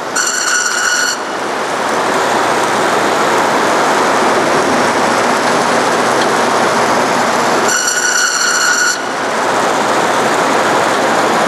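Forrest Manufacturing Model 230 high-speed vertical bandsaw running its 3/4-inch scallop-edge knife blade at about 3,000 feet per minute, giving a steady loud noise while a stack of starch-based foam is slid through the blade. Twice, at the start and again about two thirds through, a brief high squeal of about a second rises over the running noise.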